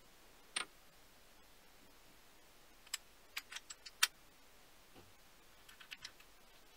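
Small machined metal parts of a lathe cross-slide dial lock clicking and clinking against each other as they are fitted together by hand: one click about half a second in, a quick run of about six sharp clinks around three to four seconds in, and a few fainter ones near the end.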